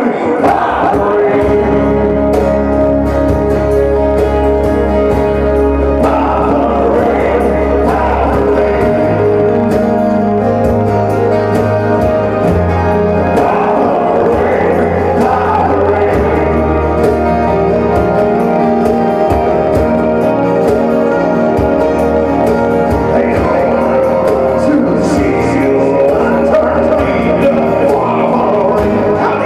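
Live acoustic band playing with singing: strummed acoustic guitars, keyboard and a hand-played cajon under the vocals.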